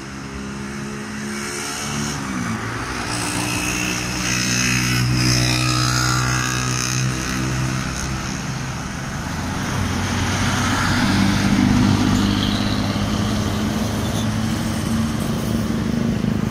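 Road traffic going by: the diesel engine of an approaching Sugeng Rahayu intercity bus running, mixed with passing cars and motorcycles. About two seconds in, one engine note falls in pitch as a vehicle goes past.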